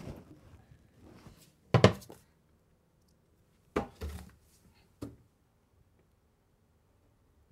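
A few wooden knocks and thuds as a low wooden cabinet is handled and its door pulled open. The loudest, sharpest knock comes about two seconds in, with a quicker pair and one small knock a couple of seconds later.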